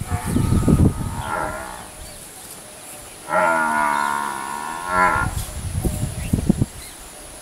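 Asian elephant calling: a short call about a second in, then one long, mooing call of about two seconds in the middle. Low rumbling noise comes before and after the calls.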